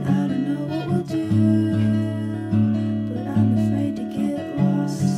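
Background music: an instrumental piece played on acoustic guitar.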